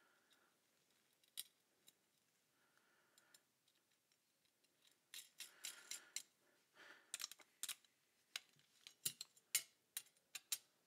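Small metallic clicks and clinks of a screwdriver, screws and star washers on zinc-plated steel chassis brackets as screws are driven in and the brackets are handled. A few scattered clicks at first, growing busier about five seconds in.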